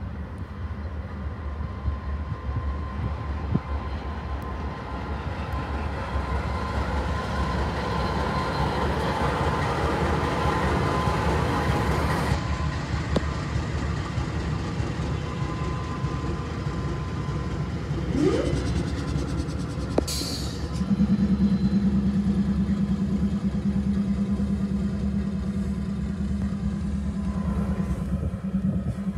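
A freight train of coal gondola cars and a CSX diesel locomotive rumbles steadily under road noise from inside a moving car. A brief rising whine comes about two-thirds of the way in, followed by a short hiss, and then a steady low drone joins.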